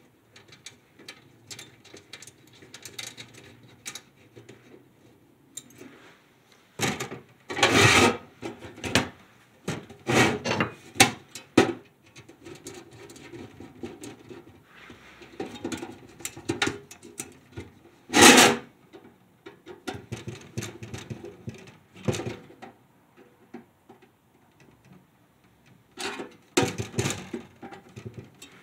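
Thin sheet-metal stove parts and small screws and nuts being handled while the stove door is screwed on: intermittent clinks, rattles and scraping of metal, with a few louder clatters scattered through.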